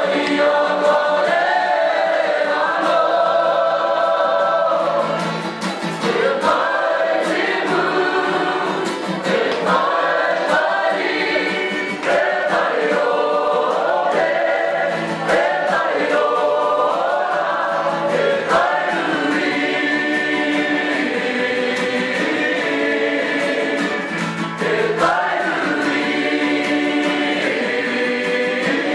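A large mixed group of men and women singing a song together in harmony, holding long notes between phrases.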